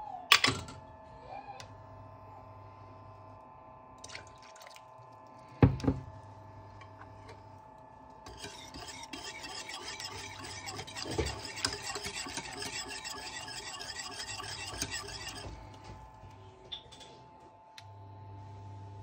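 Wire whisk beating a liquid eggnog mixture in a stainless steel pot: fast, rhythmic scraping and tapping for about seven seconds in the middle. Two sharp knocks come earlier, one just after the start and one near six seconds, over a faint steady hum.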